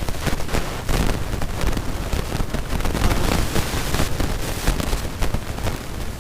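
Wind rushing and buffeting on the microphone of a moving scooter, with irregular knocks and rattles as it jolts over a broken, potholed road.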